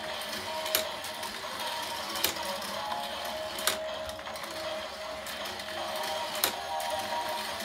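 Battery-powered toy jet slope playset running: its small motor and lift mechanism whirring steadily, with four sharp plastic clacks spread through it as the little toy jets are carried up and drop onto the track.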